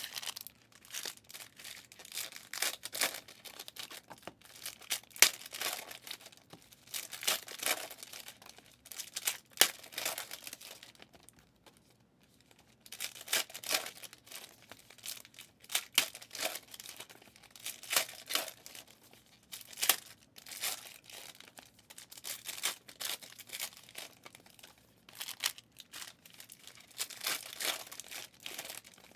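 Foil wrappers of 2023 Legacy football trading-card packs being torn open and crumpled, one pack after another, in irregular bursts of ripping and crinkling with a brief lull about halfway through.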